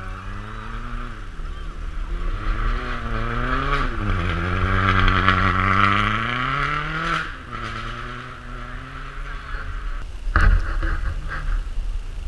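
Rally car engine revving hard on an icy stage. Its pitch rises and falls with the throttle several times, climbs to its loudest about two-thirds through, then drops away suddenly to a quieter engine note. A sharp knock comes near the end.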